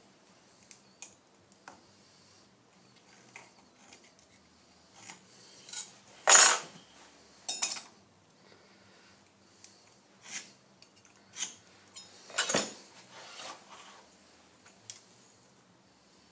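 Steel rule and scriber clinking and scraping on a metal block during layout marking: scattered light taps, with two louder metal scrapes about six and twelve seconds in.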